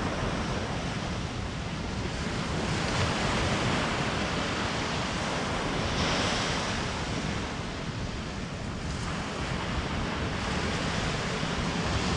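Ocean surf breaking on a sandy beach: a steady wash of waves that swells louder about three and six seconds in as waves break, with wind buffeting the microphone.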